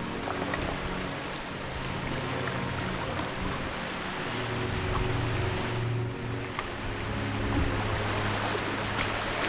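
Steady rush of river water running through a small class 1 rapid ahead of a drifting canoe, under low held notes of background music.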